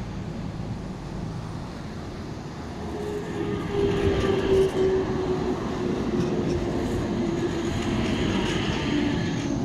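Stadler Tango ABe 8/12 tram of the Appenzeller Bahnen passing close by at low speed: its wheels rumble on the rails under a steady drive tone. The sound grows louder about three seconds in as the cars come alongside.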